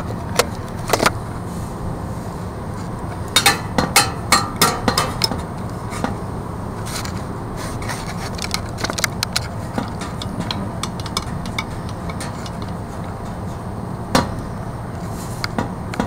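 Irregular metal clicks, knocks and scrapes of hands working the valve on a backflow preventer to turn a building's water back on, heard close up over a steady low background noise. The knocks come in clusters, with one sharp knock near the end.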